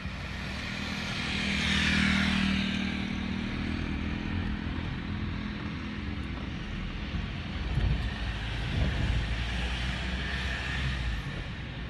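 Outdoor traffic noise: a vehicle passes about two seconds in with a falling pitch, and a low engine rumble swells later on.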